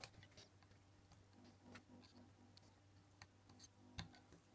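Near silence, with a few faint small clicks as metal header pins are freed from a circuit board with a soldering iron. A sharper click comes about four seconds in.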